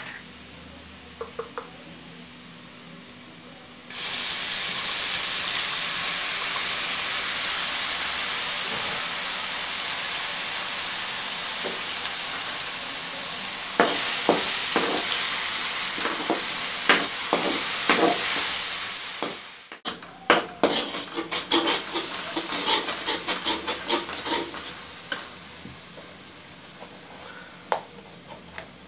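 Garlic, ginger and green chilli paste sizzling loudly in hot oil with fried onions in a metal karahi, the sizzle starting suddenly about four seconds in. A metal ladle clinks and scrapes against the pan as it is stirred, and the sizzle fades toward the end.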